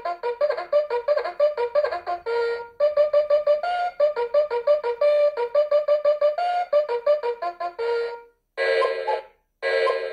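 Nickelodeon Time Blaster alarm clock playing one of its alarm tunes: a fast, trumpet-like melody of short notes, several a second. Near the end the tune stops and two short separate blasts of another alarm sound follow.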